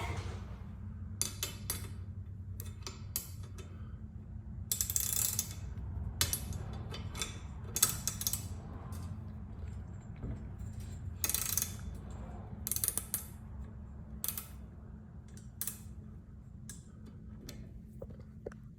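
Hand tools working on garage door torsion spring hardware: irregular short metallic clicks and scrapes, with a steady low hum underneath.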